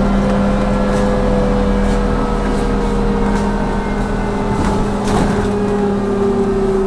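Trolleybus electric drive heard from the cab: a steady electrical hum under a motor whine whose tones slowly fall in pitch as the trolleybus slows, with a few light rattling clicks.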